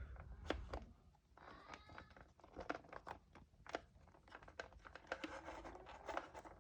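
Faint, irregular plastic clicks and crinkling as the power cord is handled and pulled out of a Black+Decker portable air inflator's storage compartment.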